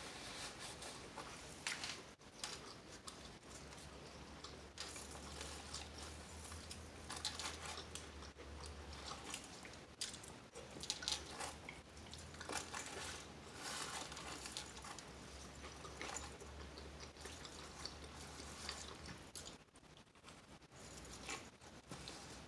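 Close-up eating sounds: chewing and biting into food, with scattered crunches and soft wet mouth clicks.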